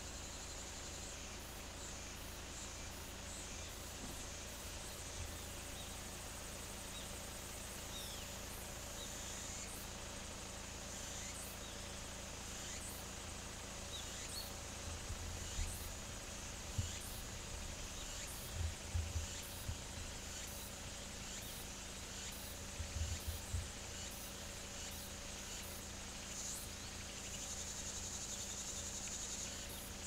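Outdoor summer ambience of insects, with a steady high chirring that swells near the end and scattered short high chirps. A few low thumps come in the middle stretch and are the loudest sounds.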